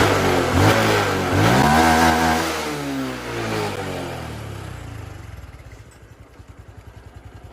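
Honda Wave small single-cylinder four-stroke motorcycle engine revved up a few times and then settling back to a pulsing idle, running through an aftermarket header pipe on the stock muffler. It sounds the same as stock, not louder.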